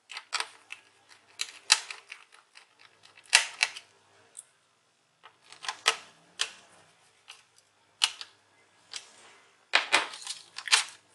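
Irregular small clicks and scrapes of a screwdriver driving two small screws into a plastic laptop chassis to fasten its battery. Near the end comes a denser run of plastic clattering as the chassis is handled.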